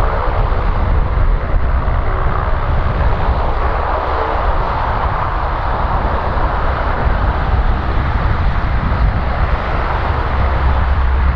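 Lockheed C-130H Hercules's four Allison T56 turboprop engines and propellers running, a loud, steady drone with a deep rumble underneath.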